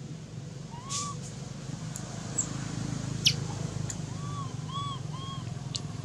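Short whistle-like animal calls that rise and fall, one about a second in and three in quick succession near the end, with a few sharp high chirps between them, over a steady low hum.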